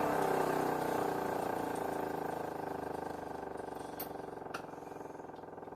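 Several 3D-printed mechanical sirens winding down together, their pitch sliding lower as the wail fades away. Two faint clicks come about four seconds in.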